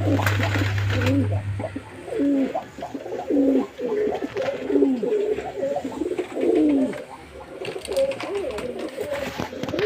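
Racing pigeons cooing, many short rising-and-falling coos overlapping one after another. A low steady hum runs under the first second or two.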